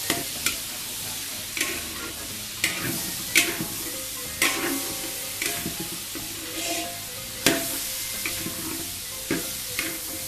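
Metal spatula scraping and clacking against a large aluminium wok during stir-frying of diced vegetables and pork, with sharp strikes about once a second over a steady sizzle of hot oil.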